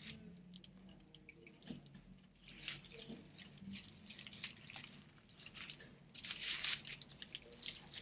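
Quiet chewing with small wet mouth clicks, then paper wrapping around a sandwich crinkling for a second or two near the end.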